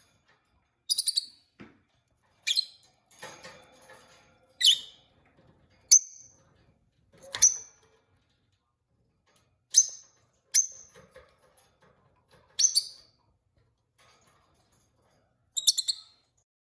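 Peach-faced lovebird chirping: about ten short, high-pitched calls spaced a second or two apart, some of them quick stuttered runs of notes.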